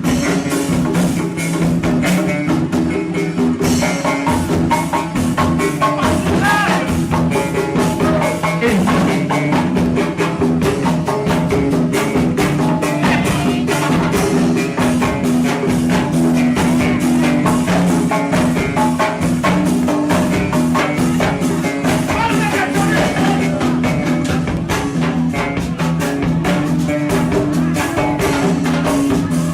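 Loud music with a fast, steady percussive beat over sustained low notes.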